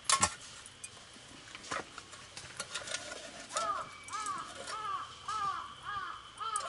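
A sharp knock at the start, then a crow cawing six times in a steady series, about two caws a second.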